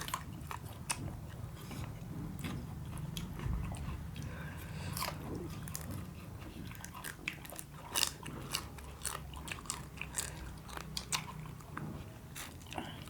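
Close-up eating sounds: chewing and biting, with irregular sharp cracks and crunches of crab shell being bitten open.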